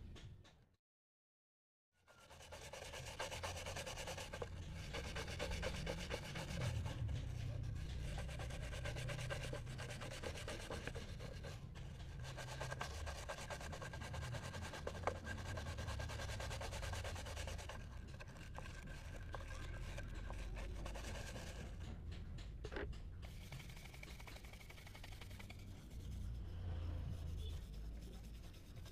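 A stiff hand brush scrubbing a brass candle holder in soapy water: fast, continuous wet scratching strokes. It starts about two seconds in, after a brief silent gap.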